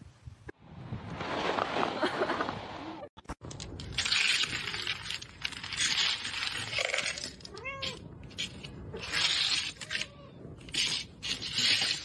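A cat hissing in repeated bursts, with a short meow about eight seconds in.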